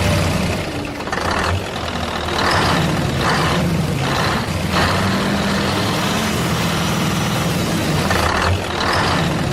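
Heavy truck engine idling with a steady low hum, overlaid by several short, higher-pitched sounds.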